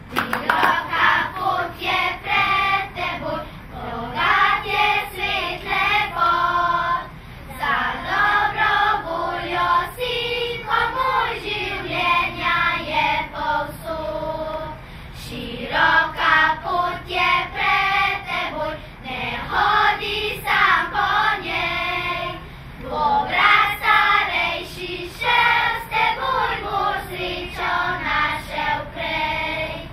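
Primary-school children's choir singing together, phrase after phrase with short breaks between them.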